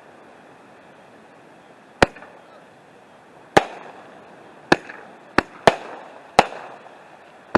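Festival ball firework shells going off in quick succession: seven sharp bangs at uneven intervals, starting about two seconds in, each trailing off in a brief echo. They are small, cheap shells with small breaks.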